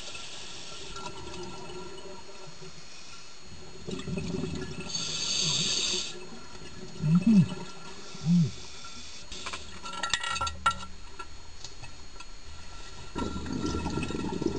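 Underwater scuba breathing: exhaled bubbles from a diver's regulator rush past in bursts, with two short, loud low tones that rise and fall about halfway through and a few clicks a little later.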